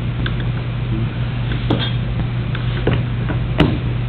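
Scattered clicks and light knocks of clamps being set and tightened on a wooden board, over a steady low hum.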